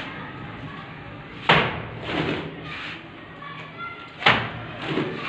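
Wet cement mortar flung from a trowel slapping against a brick wall: two sharp slaps about three seconds apart, with softer scrapes between them as more mortar is scooped up from the floor.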